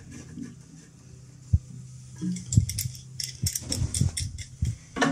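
Several dull knocks and light clicks of a flexible water supply hose and its fitting being handled and pushed onto the threaded inlet of a toilet cistern's ballcock, over a steady low hum.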